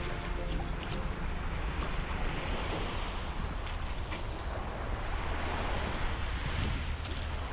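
Waves washing against a lake shore, with gusty wind rumbling on the microphone. The last notes of background music fade out in the first half second.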